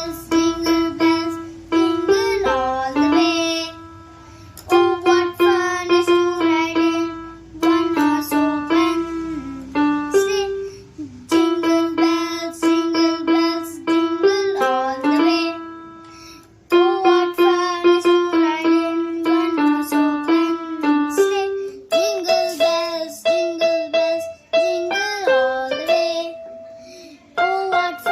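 Electronic keyboard playing a single-line melody in phrases, with some notes sliding up and down in pitch.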